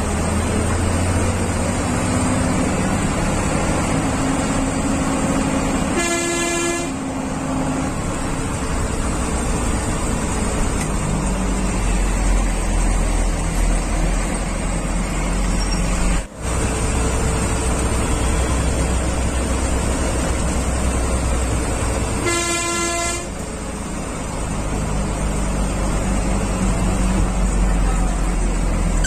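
Bus engine running with road noise, heard from inside the cabin, and two honks of the horn, each about a second long and some sixteen seconds apart.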